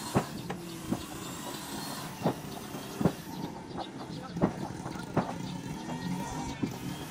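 Hammering: hard knocks, mostly in pairs about two-thirds of a second apart, repeating roughly every two seconds over a steady background noise.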